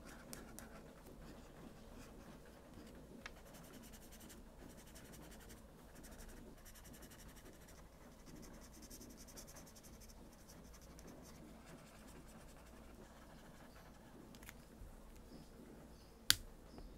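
Felt-tip permanent marker (Monami Namepen F) drawing on paper, in soft scratchy strokes that come and go over a steady low hiss. One sharp click near the end as the marker is handled.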